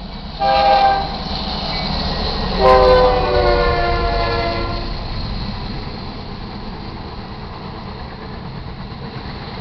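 A GE C44-9W diesel locomotive's air horn gives a short blast, then a longer one whose pitch drops as the locomotive passes. It is followed by the steady low rumble of freight cars rolling past on the rails.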